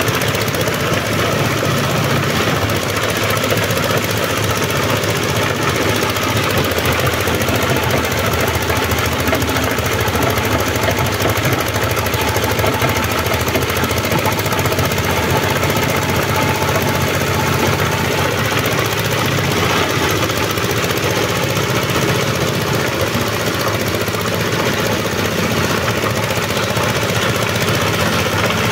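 Small single-cylinder diesel engine running steadily under load, driving a shredder that grinds organic waste into a wet mash, a constant clattering machine noise with no let-up.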